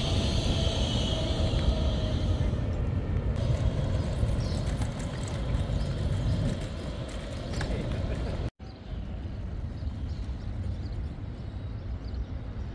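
City street ambience: a steady rumble of traffic, with a high whine for the first two or three seconds. The sound cuts out for an instant a little past halfway and comes back quieter.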